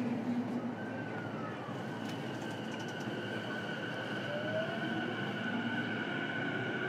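Running sound inside a JR East E233-series electric motor car: the traction inverter and motors whine over a steady rumble, with a tone that rises about a second in and then holds steady and high, and a lower rising tone near the end, as the train pulls away and accelerates.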